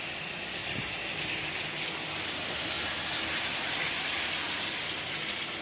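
Heavy rain falling in a thunderstorm downpour: a steady, even hiss.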